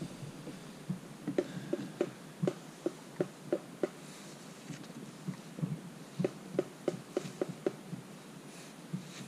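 Fishing reel being wound: an even clicking, about three clicks a second, in two runs with a pause between.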